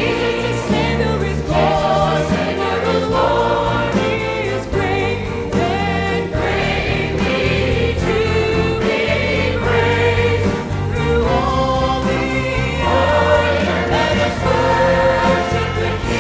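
Choir singing with instrumental accompaniment, sustained low bass notes under the voices.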